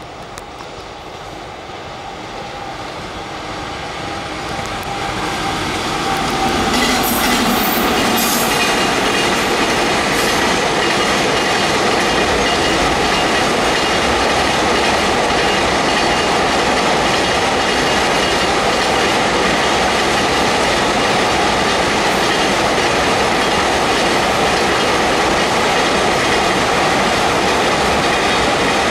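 Electric-hauled freight train approaching and passing, growing louder over the first several seconds. It then settles into a steady rolling clatter of wagon wheels on the rails.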